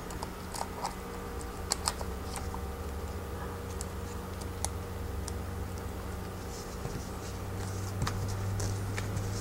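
Scattered small plastic clicks and taps from a compact digital camera being handled, with a close double click about two seconds in, over a steady low hum.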